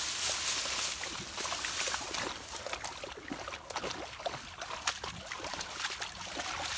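Large dogs wading in shallow pond water: irregular splashing and sloshing, with a dog lapping at the water close by.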